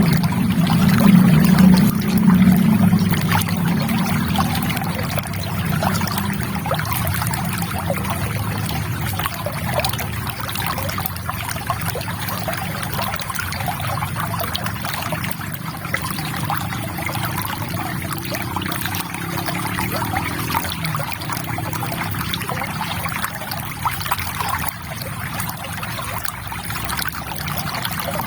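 River water trickling and flowing steadily. A deeper low burble is strongest in the first few seconds and then eases off.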